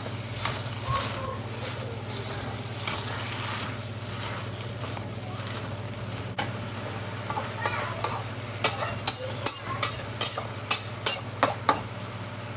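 Shredded cabbage stir-frying in a wok, sizzling as a metal slotted spatula scrapes and tosses it, over a low steady hum. In the last few seconds the spatula knocks sharply against the wok, about three times a second.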